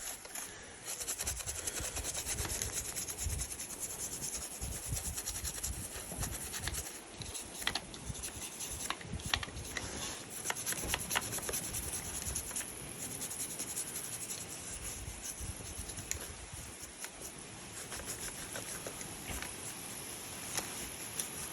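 Steady scratchy rubbing, as a NERF blaster's plastic is scrubbed or sanded clean, with a scatter of sharp clicks about a third of the way in.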